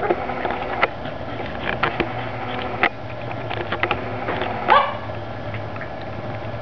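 Two young Staffordshire Bull Terriers play-fighting, giving several short, sharp barks, the loudest about three-quarters of the way through.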